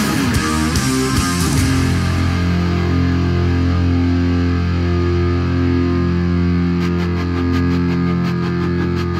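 Background rock music with electric guitar: sustained held chords, the beat dropping out about two seconds in and coming back near the end.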